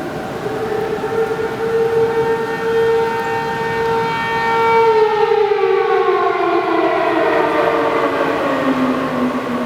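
P-15 outdoor tornado warning siren wailing for a tornado warning. Its pitch holds steady for the first half, then falls steadily through the second half.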